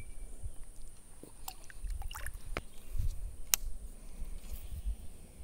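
Light water sloshing in a shallow creek as a hand moves in the water, with a low rumble and a few faint clicks from handling gear.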